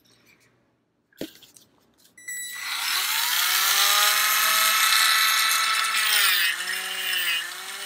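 A Dremel rotary tool with a stainless steel wire brush wheel is switched on about two seconds in, its whine rising quickly to full speed with a rushing, scrubbing noise. About six seconds in the pitch drops and stays lower as the spinning brush is loaded against the straight razor's steel tang.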